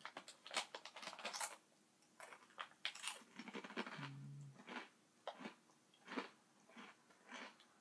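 Funyuns onion-flavored corn snacks being crunched and chewed close to the microphone: irregular sharp crunches, several a second, some louder than others.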